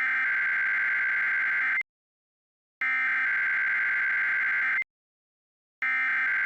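Emergency Alert System SAME header: three identical bursts of screeching digital data tones, each about two seconds long with a second of silence between, the third starting near the end. The three bursts encode the alert's data for receivers, here ahead of a weekly test message.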